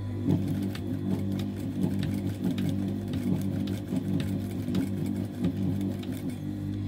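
Typical industrial lockstitch sewing machine stitching a denim darn. It starts about a quarter second in and runs in uneven bursts of rapid needle ticking as the fabric is worked back and forth under the foot.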